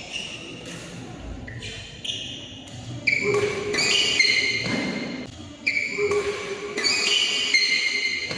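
Badminton doubles rally: a string of sharp racket hits on the shuttlecock and players' footwork on the court, ringing in a large hall. It gets louder and busier from about three seconds in.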